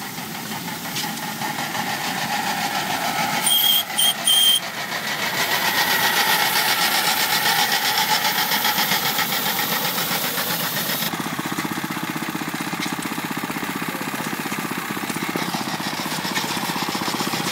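Miniature steam traction engine running with a fast, even beat, among other working vintage engines. Three short high whistle toots come about three and a half seconds in.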